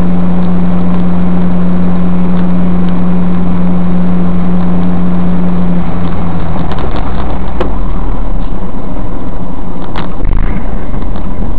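Car driving on a snowy highway, engine and road noise heard from inside the cabin through a dash cam, loud and steady. A strong low hum runs through it and drops away about six seconds in, and a few sharp clicks come later.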